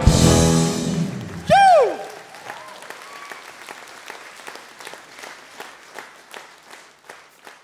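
A live band's closing chord rings out, ending about a second and a half in with a loud last note that swoops up and slides down in pitch. Then the audience applauds, the clapping thinning out toward the end.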